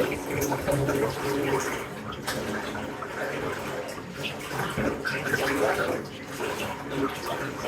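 Tap water running into a bathtub: a steady rush of water with a shifting, babbling texture.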